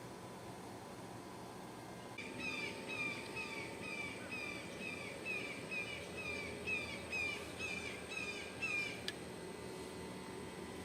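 An animal calling: a rapid series of short, high-pitched chirps, each falling in pitch, about three a second, starting a couple of seconds in and breaking off abruptly near the end, over a steady outdoor background.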